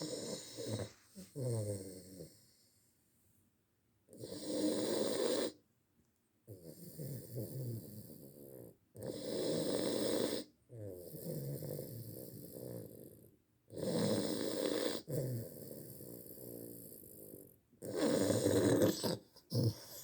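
Snoring in a slow, regular rhythm: a loud snore about every four to five seconds, each followed by a quieter, longer one.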